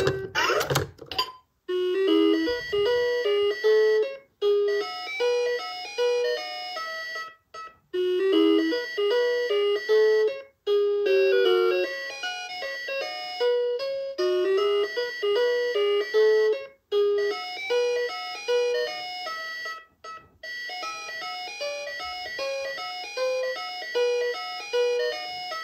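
VTech Teach and Travel Animal Train toy playing electronic melodies in simple beeping tones, one short tune after another with brief breaks between them. A short burst of handling noise comes right at the start.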